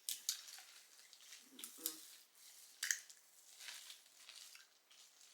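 Close-up eating sounds of a seafood boil: quiet wet clicks, crackles and squishes as sauce-covered shrimp and crawfish shells are peeled and the meat is chewed, with several sharp clicks among them.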